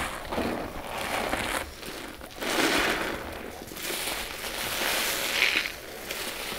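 Sponges loaded with a paste-and-powder mixture being squeezed by hand. Several squeezes in a row, each a rise and fall of noise lasting about a second.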